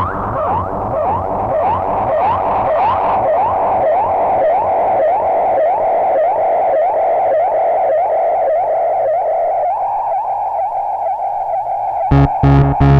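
Electronic synthesizer sound from a Korg Monotron Delay and a KOMPASS synth. A drone carries short rising pitch sweeps that repeat about three times a second over a low pulsing layer. The sweeps fade into a steadier tone near the end, and about a second before the end a loud, pulsing low beat comes in.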